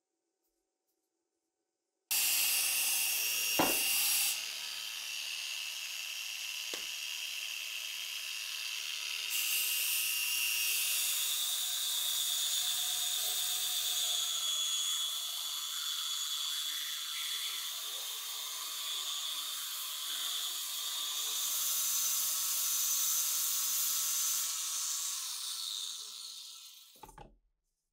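Angle grinder with a narrow belt-sander attachment grinding rust and pitting off a steel rifle barrel: a high-pitched whine over harsh rasping. It starts suddenly about two seconds in and dies away near the end.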